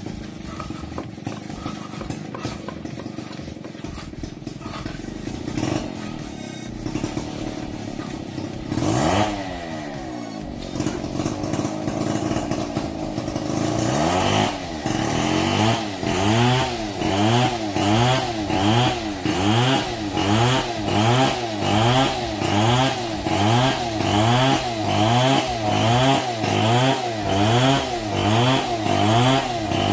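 A small engine running. About halfway through it starts revving up and down over and over, a little more than once a second.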